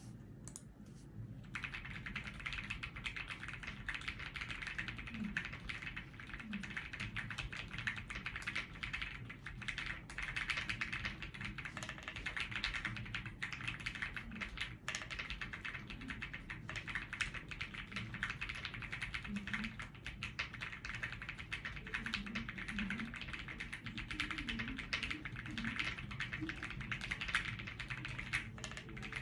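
Continuous fast typing on a Rainy75 mechanical keyboard fitted with Gateron Oil King linear switches, a dense run of keystrokes starting about a second and a half in.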